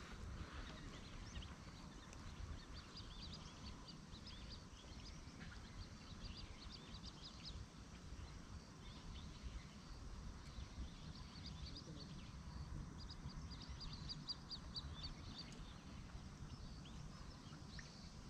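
Faint outdoor ambience: small birds chirping in quick high runs now and then, over a low steady rumble.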